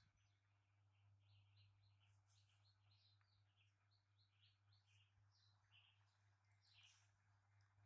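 Near silence, with small birds chirping faintly in many short quick notes over a low steady hum.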